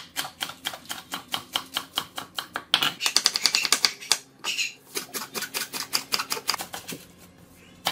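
Chef's knife chopping crisp vegetables (purple cabbage, red onion, napa cabbage) on a wooden cutting board: quick, evenly spaced strokes, about five or six a second, in several runs, slowing near the end.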